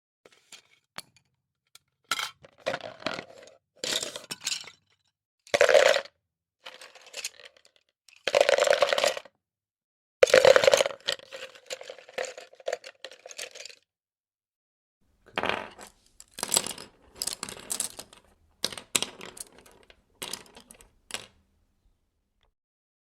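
Pencils, pens and markers poured into a box and set down on a table, clattering and clinking in a series of separate bursts, some with a brief ringing after them.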